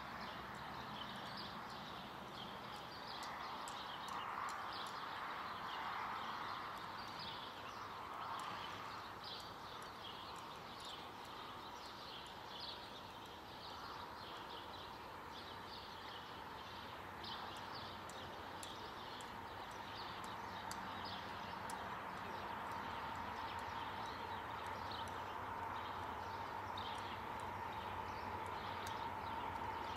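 Horse walking on soft arena dirt, its hoofbeats quiet and muffled, with short high chirps throughout. A steady single tone builds over the last several seconds.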